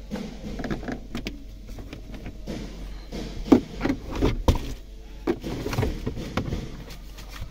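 Plastic center-console side trim panel being worked loose and pulled out of a car's interior by hand: an irregular run of knocks, clicks and rubbing as its retaining clips give, with the sharpest knocks about three and a half and four and a half seconds in.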